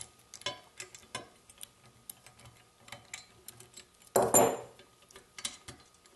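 A 7/16 ratchet clicking in short runs as lock nuts are backed off an ice auger's blade bolts, with one louder metallic clank about four seconds in.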